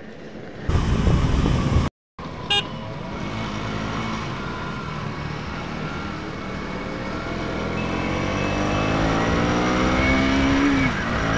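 KTM Duke motorcycle engine accelerating, its pitch rising steadily for several seconds until a gear change near the end. A short beep comes about two and a half seconds in.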